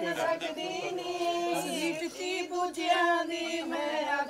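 A group of voices singing together in unison, unaccompanied, holding long, steady notes in a traditional folk-style melody.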